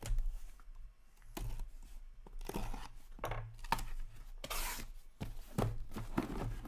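Packing tape being ripped off a cardboard shipping case and its flaps pulled open: several short, rough tearing rips a second or so apart.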